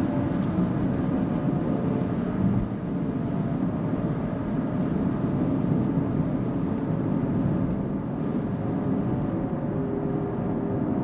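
Cabin noise of a Kia EV6 electric car driving at road speed: a steady rumble of tyres on the road and wind, with faint thin whining tones that drift slowly in pitch.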